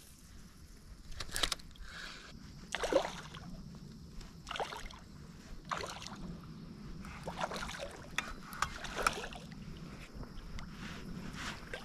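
River water splashing and sloshing: a string of separate splashes every second or two over a steady low water murmur.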